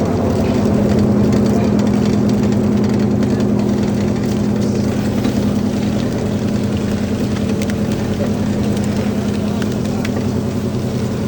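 Steady mechanical hum of forging-shop machinery running, with a few faint clicks.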